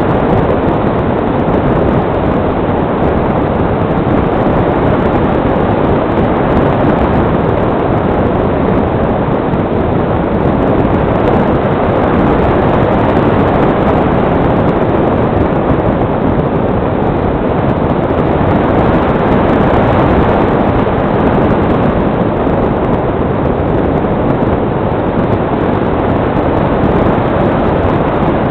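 Steady rush of airflow over the onboard camera's microphone of a model glider in flight, an even noise with no motor note.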